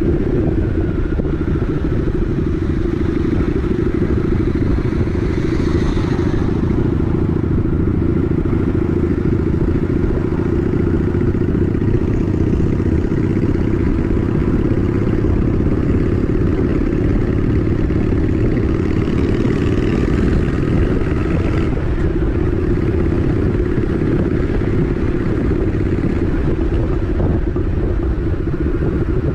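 Honda Shadow 750 ACE's V-twin engine running steadily while cruising down a town street.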